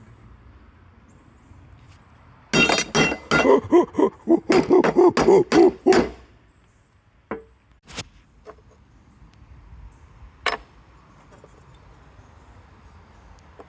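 Metal being struck with a hammer, each blow ringing: a quick run of about a dozen blows over three seconds, then a few single strikes. This fits work on the steel mower deck of a John Deere LX188 lawn tractor.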